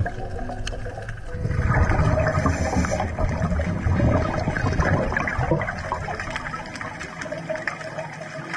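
Underwater rush and gurgle of a scuba diver's exhaled air bubbles, strongest from about a second and a half in and fading after about five seconds.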